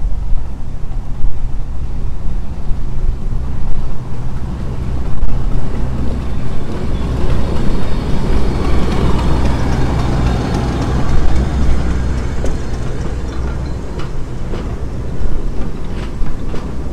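English Electric 800 class diesel locomotive running under load with a steady low engine drone, swelling louder and fuller in the middle as it works past. A few sharp clicks come near the end.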